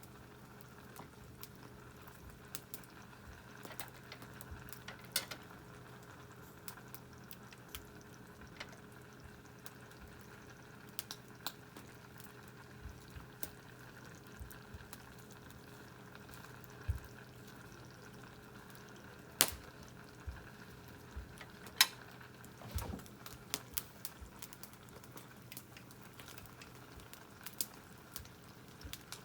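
Canned food bubbling and sizzling in its open tin as it heats directly over a wood fire, with scattered sharp pops and crackles, a few of them louder.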